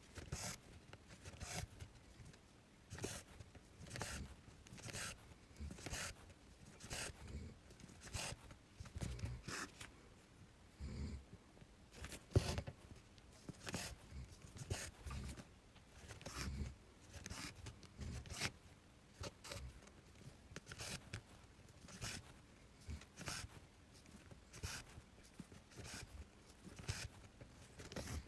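Embroidery thread being drawn through cross-stitch fabric, a short scratchy rasp about once a second, stitch after stitch.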